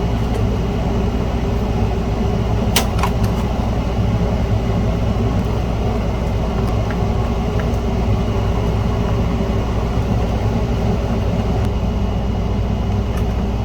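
Steady drone of a running electric motor, with a sharp click a little under three seconds in.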